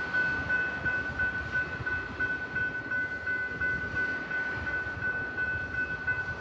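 Amtrak Capitol Corridor push-pull train, pushed by a Siemens SC44 diesel locomotive at the rear, rumbling along the rails close by. A steady high-pitched tone rings over the rumble.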